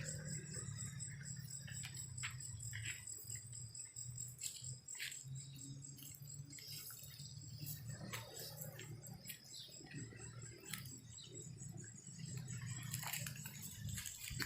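Insects, likely crickets, trilling steadily in a high, rapidly pulsing tone, over a faint low hum and a few scattered light clicks.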